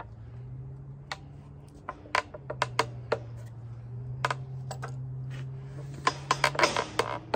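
Sharp clicks and knocks of a wooden Osage bow stave being worked into a wooden bending jig and a small metal clamp being fitted to it, scattered at first and coming in a quick cluster near the end. A steady low hum runs underneath.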